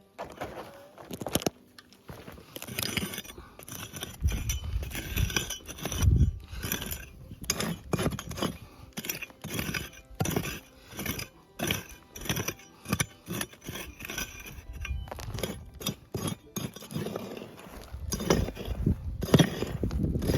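Repeated strikes of a digging tool into stony ground, with stones clinking and scraping, about one to two strokes a second, as a metal-detector target is dug out.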